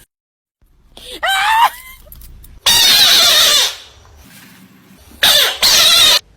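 A short wavering whine, then loud screaming cries in three rough bursts, the longest about a second.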